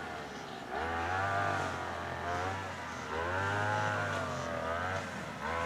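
Grass trimmer motor revving up and easing back: the pitch climbs three times, about a second in, near three seconds and again near the end, each time holding for a couple of seconds before dropping.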